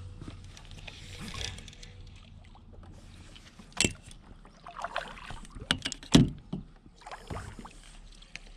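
A fishing kayak being paddled: paddle strokes splashing in the water, with a few sharp knocks. The loudest knock comes about six seconds in.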